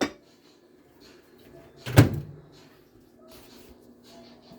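A microwave door being shut with a single thud about two seconds in.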